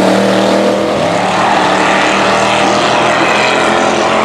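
Engine of a lifted Cadillac Escalade-bodied mega mud truck running hard at steady revs under load, over a rushing noise of the tyres churning dirt.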